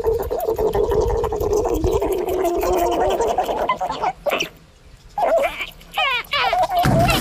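Guinea pigs vocalizing: a rough, gurgling, wavering call for about the first three seconds. Then a few short squeaks, and a quick, warbling high call near the end.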